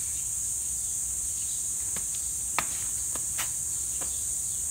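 Steady, high-pitched chorus of insects, with a few light clicks around the middle.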